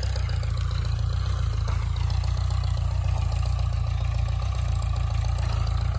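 Ford farm tractor's 5,500 cc engine running steadily under load while ploughing out sugarcane stubble, a continuous low drone.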